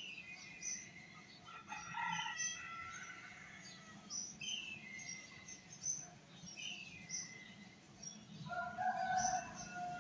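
Small birds chirping and calling repeatedly in short high chirps and held whistled notes, with a rooster crowing near the end.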